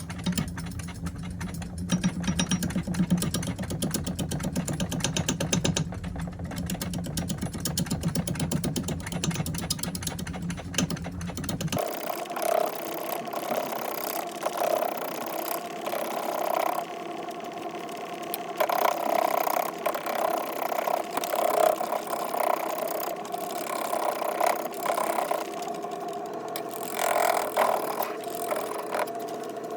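Wood lathe spinning an uneven green log while a gouge makes intermittent cuts, catching only the high spots of the out-of-round blank in rapid ticking bursts. About twelve seconds in, the low rumble cuts out abruptly, leaving a steadier higher whine with bursts of cutting noise.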